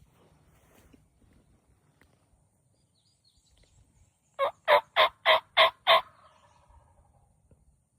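A wild turkey yelping: a run of six loud, evenly spaced yelps, about three a second, beginning about halfway through, with a faint echo trailing after.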